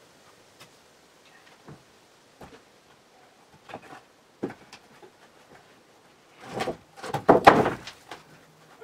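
Old wooden barn loft floorboards being pried up with a pry bar: a few scattered knocks and taps, then about six and a half seconds in a loud stretch of wood noise, lasting about a second and a half, as a board is levered loose.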